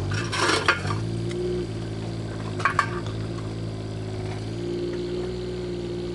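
Kubota KX019 mini-excavator's diesel engine running steadily, with debris crunching and clinking in the first second and two sharp metallic clanks near the three-second mark as the machine works through the rubble.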